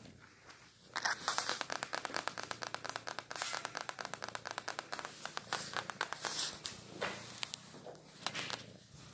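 Fingernails scratching and tapping quickly on a wooden floor, a dense run of small clicks. It starts about a second in and thins out near the end.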